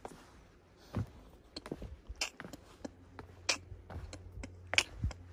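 Footsteps going down stone steps: scattered light taps and sharp clicks at an uneven pace.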